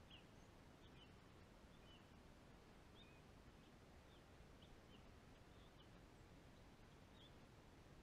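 Near silence outdoors: a faint low hiss with scattered faint high chirps from small birds, about one or two a second, stopping near the end.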